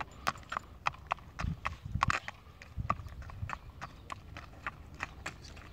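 Hooves of a young colt walking on asphalt, a steady clip-clop of about three or four hoofbeats a second. A few dull low thumps sound in the middle.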